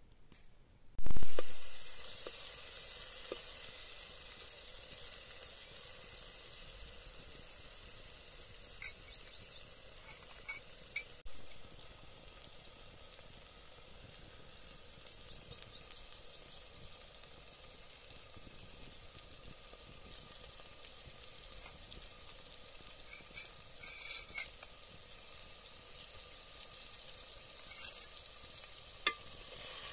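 Tempering oil frying in a pot: a loud burst of sizzling about a second in as ingredients hit the hot oil, settling into a steady sizzle that slowly fades. Birds chirp briefly a few times.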